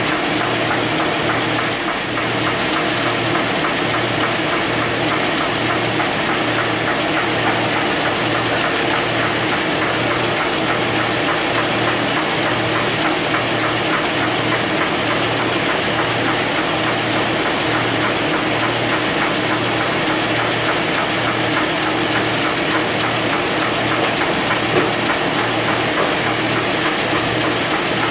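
Industrial paper-processing machine running steadily: a loud, even mechanical clatter over a low hum that pulses at a regular pace.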